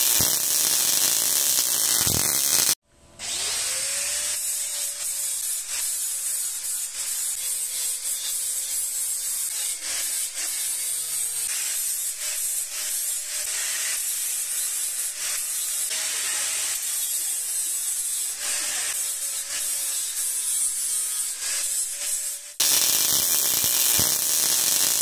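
Angle grinder spinning up about three seconds in, then polishing the welds on stainless-steel tube with an abrasive disc. It makes a steady hissing scrape over a motor whine that dips now and then as the disc is pressed on.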